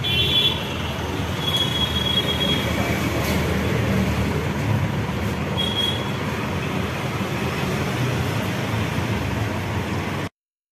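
Street traffic noise: a steady low rumble with a few brief high-pitched squeals. The sound cuts off abruptly near the end.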